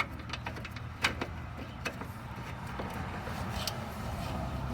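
A few short, sharp metallic clicks and clinks, spaced about a second apart, of tools and parts being handled, over a steady low hum.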